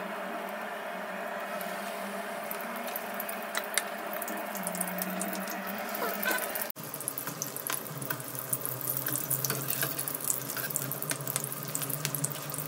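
Besan-battered green chillies (mirchi pakoras) frying in hot oil in a kadhai: a steady sizzle with many small crackles and pops. It breaks off for an instant about seven seconds in, then goes on.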